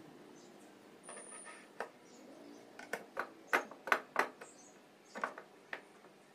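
Sharp clicks and light knocks of a steel shaft and pillow block bearings being handled as a drum sander's roller is fitted into its bearings, most of them bunched between about three and four seconds in, with a few more after five seconds.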